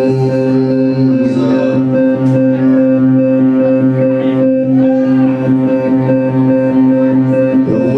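Live band music from a guitar, upright bass and drum trio, with a chord held steady throughout and a few short sung or sliding notes about halfway through.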